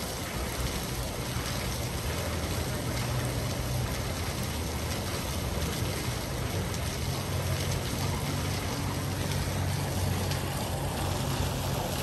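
Fountain water jets splashing steadily into the basin, with a low hum underneath.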